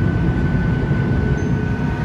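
Steady cabin noise inside a Boeing 737 MAX 8 airliner in flight: a deep, even rush of engine and airflow noise with a thin steady whine running through it.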